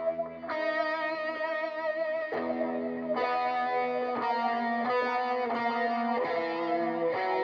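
Electric guitar played through overdrive and delay effects: sustained notes and chords ring out with a gritty edge and change about every second.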